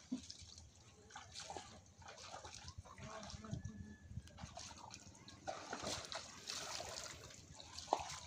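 Shallow floodwater sloshing and splashing irregularly, with small trickles and drips.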